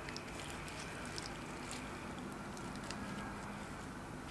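Small clicks and scrapes of a plastic stick digging lip balm out of its tube, over a steady background hum.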